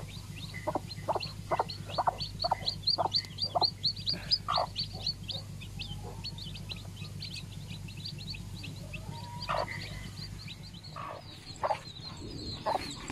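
Newly hatched chicks peeping over and over in short high downward-sliding notes, with a hen clucking in a quick run of short clucks over the first few seconds and a few more near the end.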